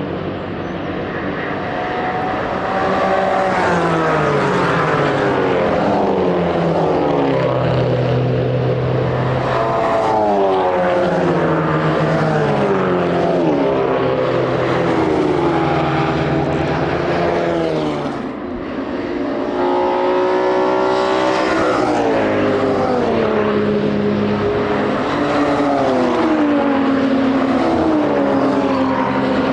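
Endurance race cars' engines passing one after another, several at once, their pitch climbing through the gears and falling away as they go by. About two-thirds of the way through the sound briefly dips, then another engine rises in pitch.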